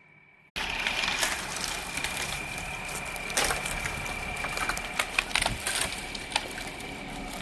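A pine tree's wood cracking and its branches snapping and crashing as it goes over: scattered sharp snaps over a steady rustling noise, with a faint steady high whine underneath.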